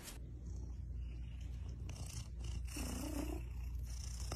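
Cat purring steadily while being combed, with the comb rasping through its fur. About three seconds in, the cat gives a short low meow.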